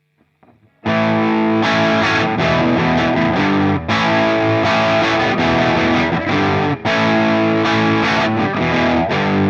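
Harley Benton SC-DLX electric guitar on its bridge pickup, played through a Hotone Ampero One modeller on a Mesa Boogie Mark IIC+ high-gain preset: an overdriven rock riff that comes in about a second in and runs on with only brief breaks.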